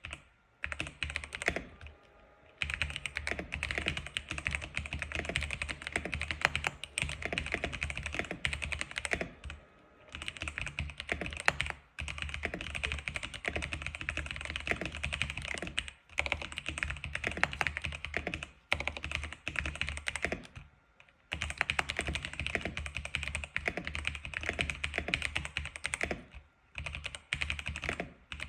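Fast, continuous typing on an X87 keyboard: rapid key clicks in long runs, broken by brief pauses about two seconds in, around ten, twelve, sixteen, twenty-one and twenty-six seconds in.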